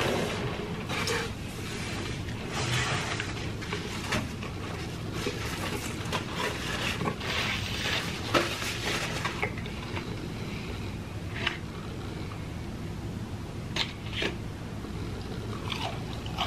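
Close-up eating sounds: chewing of crispy fried chicken nuggets, with a paper napkin rubbing across the mouth around the middle and a few short sharp clicks in the second half.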